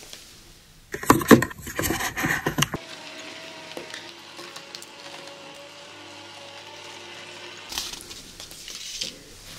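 About two seconds of loud crunching and cracking, then a vertical slow juicer's motor running with a quiet, steady hum as it presses bell peppers into juice.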